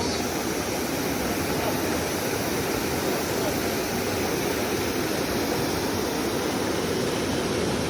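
Water rushing steadily over rocks in a mountain stream, an even, unbroken rush.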